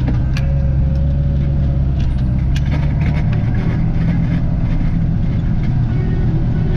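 Tractor engine running steadily while towing a forage harvester, heard from inside the cab, with scattered light clicks and rattles.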